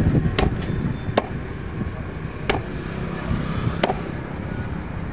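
Large knife chopping a fish into slices on a wooden chopping block: four sharp strikes spaced about one to one and a half seconds apart, over steady low background noise.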